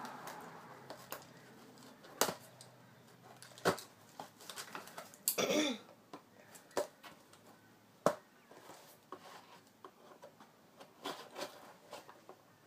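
Scissors cutting open a package: scattered sharp snips and clicks a second or two apart, a longer rasp about five seconds in, and a cluster of quick snips near the end.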